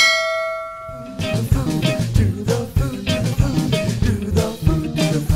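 A single bright chime rings out and fades over about a second, followed by upbeat background music with a steady beat.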